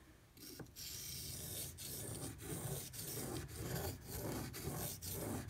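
Steel knife blade stroked back and forth across a wet 1000-grit waterstone, a rhythmic scraping grind at about two strokes a second, starting about half a second in.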